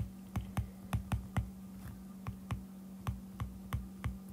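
Stylus tip tapping and clicking on an iPad's glass screen while writing by hand: a string of short, light clicks, about three a second and unevenly spaced, one at the start of each pen stroke.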